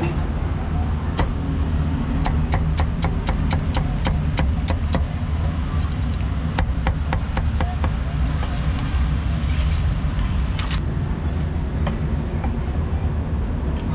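Cleaver chopping roast meat on a wooden chopping block: a quick run of chops, about five a second, from about two seconds in, then a few more strokes later. Underneath, a steady low rumble of street traffic.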